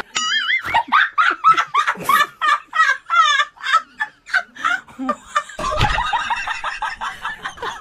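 A person laughing hard in a quick run of short ha-ha bursts, several a second.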